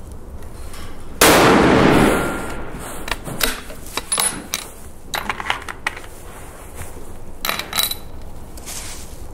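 A rifle shot about a second in, loud and dying away over about a second, followed by a scattered series of sharp metallic clicks and clacks.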